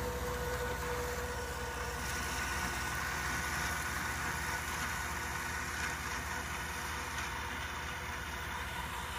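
Kubota tractor's diesel engine running steadily under load while a Kuhn FC 283 GII disc mower-conditioner cuts and conditions Italian ryegrass. A steady tone over the engine fades out about two seconds in.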